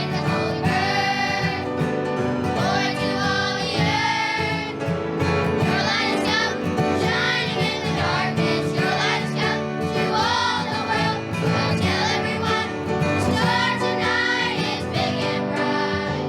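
Children's choir singing with a recorded accompaniment track.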